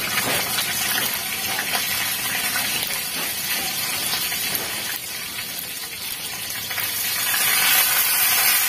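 Pieces of lapu-lapu (grouper) frying in hot oil in a wok, a steady sizzle that grows louder about seven seconds in.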